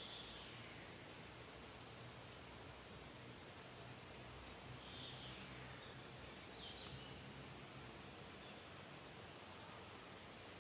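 Quiet forest ambience: a faint steady high hum under it, with short high-pitched chirps that come in small clusters four times, every couple of seconds.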